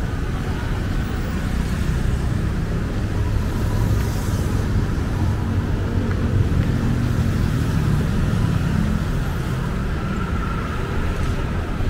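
Steady road traffic noise from cars passing on a city street, a low, even sound without distinct events.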